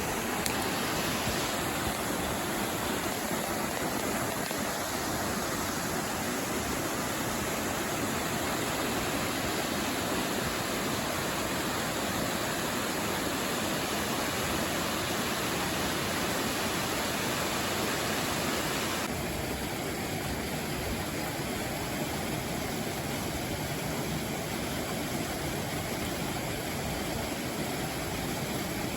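Mountain stream water rushing over rocks, a steady hiss. About two-thirds of the way in the hiss suddenly turns duller and carries on.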